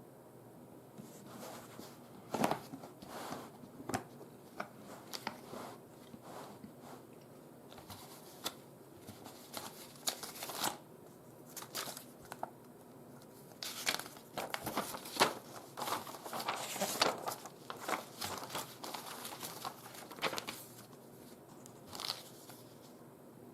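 Irregular crinkling rustles and short sharp clicks of things being handled by hand at close range, busiest in the second half.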